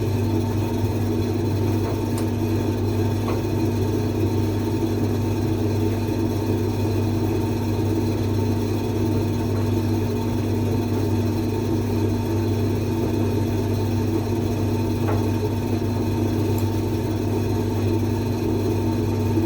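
Creda 37761 appliance running with a steady mechanical hum and whir, with a few faint clicks.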